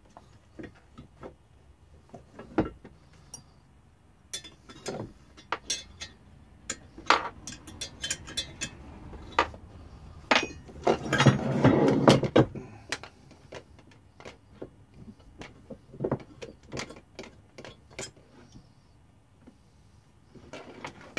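Irregular clinks and knocks of wrenches, small bolts and the sewage pump's housing being handled and set down on a workbench during disassembly, with a louder stretch of rattling about two seconds long a little past the middle.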